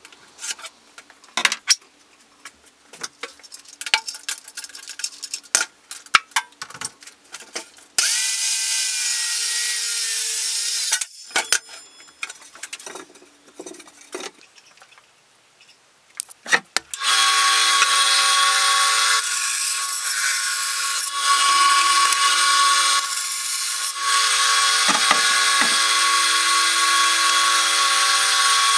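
Light taps and clicks while a plywood sheet is marked out with pencil and square. Then an electric saw cuts the plywood: a short cut about eight seconds in, and a longer steady run from about seventeen seconds on.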